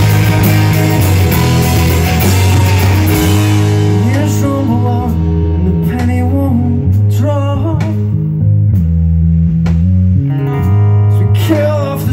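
Punk rock band playing live: electric and acoustic guitars, bass guitar, drums and a male singer. About three and a half seconds in, the cymbal wash drops away, leaving bass, guitars, sparse drum hits and the vocal. The full band comes back in near the end.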